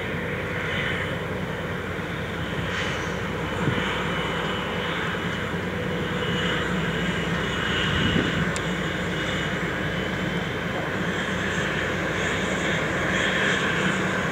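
SU45 diesel locomotive hauling a passenger express past, a steady engine drone.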